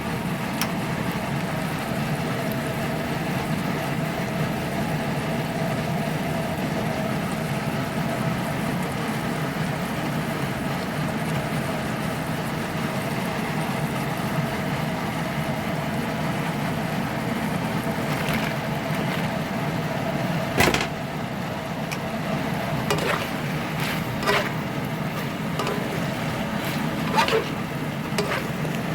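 A steady machine hum with a constant tone, broken by a few sharp clinks in the last third.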